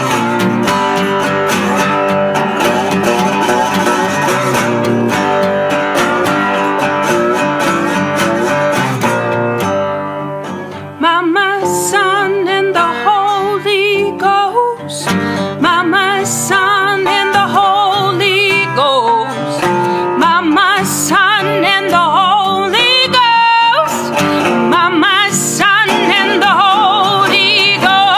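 Live acoustic folk music: an acoustic guitar strummed alone, then after a brief dip about ten seconds in, a voice comes in singing a wavering melody over the guitar.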